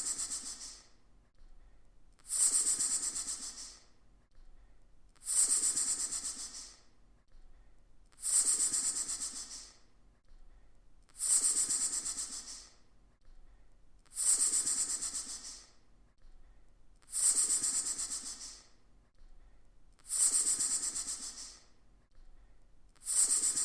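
Snake hissing in a slow, even series: about eight hisses, one every three seconds, each starting sharply and fading away over a second or so.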